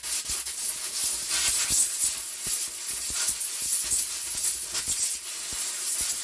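Compressed air hissing in one long continuous blast from an air blow gun, blowing deposits out of a fouled spark plug.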